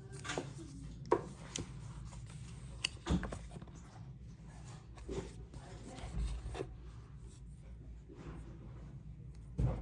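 Hands handling and opening a tablet's retail box and packaging: cardboard and paper rubbing and sliding, with scattered light taps and clicks and a louder knock near the end.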